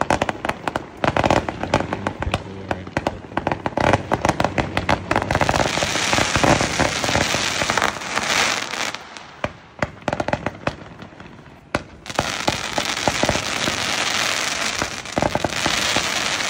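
Peking Opera 207-shot consumer firework cake firing: a rapid run of sharp cracks, then a dense crackling and hissing barrage that thins out about ten seconds in and picks up again.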